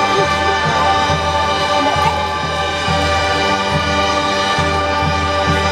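High school marching band playing: the brass holds long sustained chords over low bass notes, with a few drum hits.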